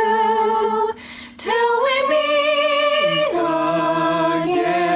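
A small group of young voices singing a cappella in harmony, holding long notes together. There is a short break about a second in, and the chord steps down to lower notes a little after three seconds.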